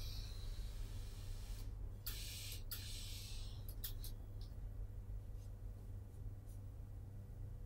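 Sleeve fabric and wadding rubbing and rustling as they are handled and pressed, with a louder scratchy swish about two seconds in lasting just over a second, over a low steady hum.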